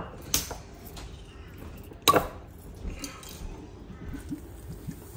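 Sharp clicks and knocks of a glass bottle being handled over a glass bowl, the loudest about two seconds in, with small ticks and rustles between.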